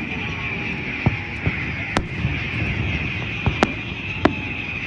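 Fireworks going off: several sharp bangs at irregular intervals, two of them close together, over a steady background din.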